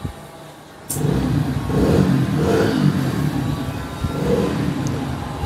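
A sharp click about a second in, then a motor running with a low, steady rumble that swells a few times.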